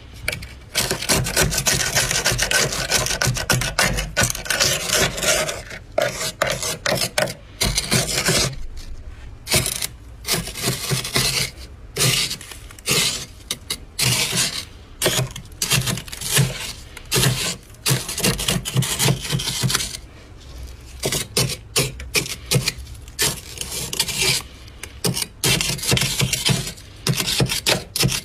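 Thick dry freezer frost being scraped: a continuous rasping scrape for the first several seconds, then many shorter, separate scraping strokes.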